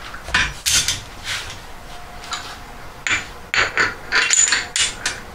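Metal coilover suspension parts handled and fitted together by hand: a string of irregular clinks, knocks and scrapes, a few of them ringing briefly.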